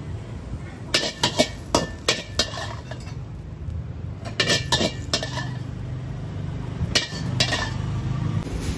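Metal wok spatula clanking and scraping against a steel wok and plate as stir-fried vegetables are served out: a quick run of sharp clanks about a second in, three more in the middle and two near the end, over a steady low rumble.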